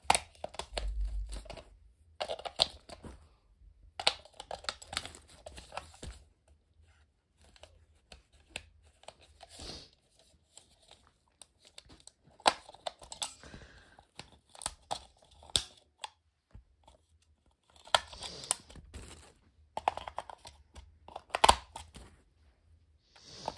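Hands fitting AA batteries into a plastic RC transmitter's battery compartment: irregular sharp clicks and taps with short bursts of rustling and crinkling, broken by pauses.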